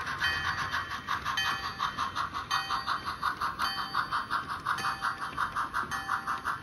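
Model steam locomotive's onboard sound system playing quick, even chuffs, about six a second, as the locomotive runs, with a few brief ringing tones now and then.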